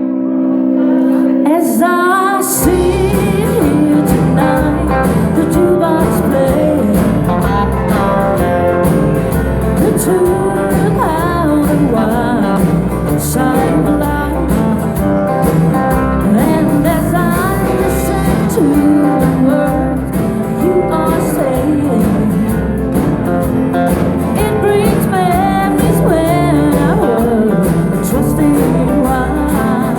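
Live country band playing a song: a held chord opens it, then bass and drums come in about two and a half seconds in, with guitar and singing.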